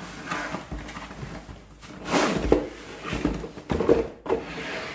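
Cardboard box being opened and a hard plastic carrying case slid out and handled, with rustling, scraping and a few knocks, the loudest about two seconds in and again near four seconds.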